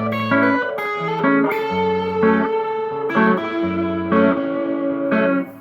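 Guitar playing a picked pattern of single notes over a changing bass line, with no singing.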